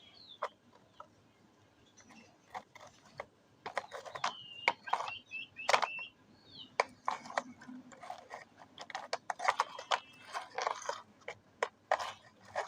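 Irregular clicks and knocks of small hard objects, thickest in the middle and later part, with short chirping calls from a bird now and then.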